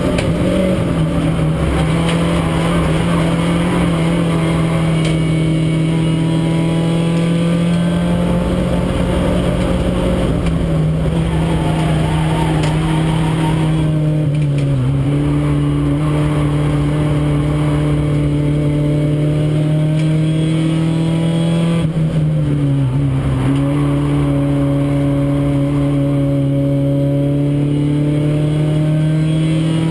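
Renault Clio race car's engine, heard from inside the cabin, running at steady revs under load, its pitch dipping briefly and recovering about halfway through and again about three quarters through.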